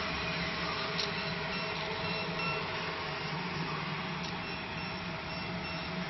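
50 W Raycus fiber laser marking machine running while it marks a brass plate: a steady hum and buzz with a faint constant whine, and a few faint clicks.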